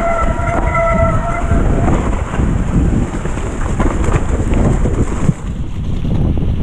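Downhill mountain bike rattling and clattering over rough, wet trail, with heavy wind noise on the camera microphone and a brief high squeal in the first second and a half. The sound changes abruptly about five seconds in.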